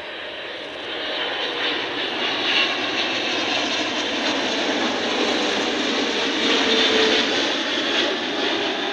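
GE90 turbofan engines of a Boeing 777-300ER on final approach, a broad jet rush with a faint whine over it. It swells about a second in and is loudest near seven seconds as the airliner passes.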